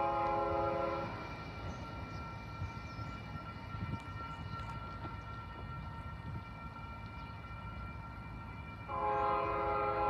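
Freight locomotive air horn sounding a loud multi-note chord, cutting off about a second in and blowing again near the end, as the train approaches a grade crossing. Between the two blasts a low rumble carries on.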